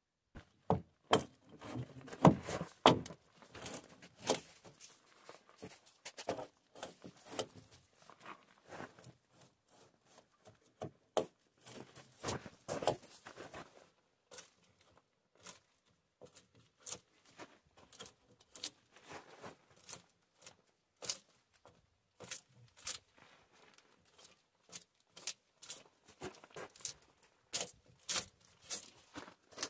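Bark being scraped and torn off a felled log with a hand debarking tool, in irregular rasping strokes with short pauses between them.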